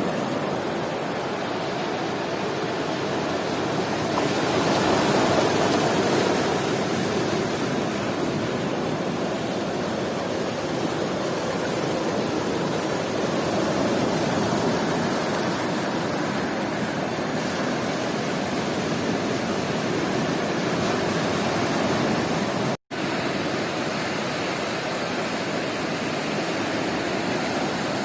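Sea surf washing steadily onto a beach, a continuous rush of breaking waves that swells louder a few seconds in. The sound cuts out for a split second about five seconds before the end.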